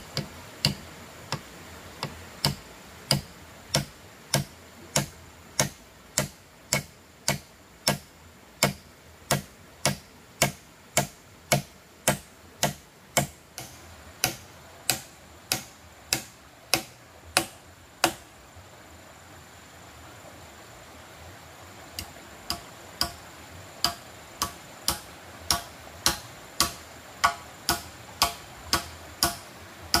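Rhythmic strokes of a tool striking wood, about one and a half a second. They pause for a few seconds a little past halfway, then resume slightly faster.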